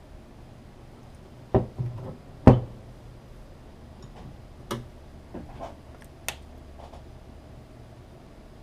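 Handling noise from small parts being worked on a bench: a few separate sharp clicks and knocks, the loudest three close together about a second and a half in, then several lighter ones.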